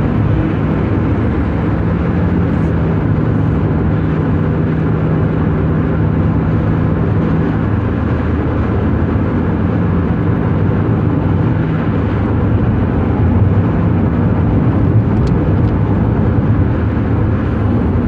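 Steady drone of a car travelling at highway speed, heard inside the cabin: tyre and engine noise with a low hum, unchanging throughout.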